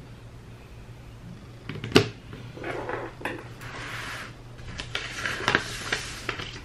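Desk handling sounds: a sharp tap about two seconds in as a stylus is put down on a tablet case, then rustling and scraping as a paper planner is slid across the wooden desktop.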